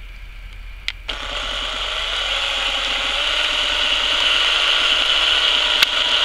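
Cordless drill-driver starts about a second in and runs steadily, growing louder, as a long self-tapping screw in its chuck bores drainage holes through a stack of plastic cups.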